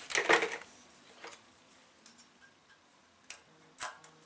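A few separate, light metallic clicks from a wrench and feeler gauge working on a small engine's exhaust valve rocker while the valve clearance is set and checked for drag; the loudest click comes a little before the end.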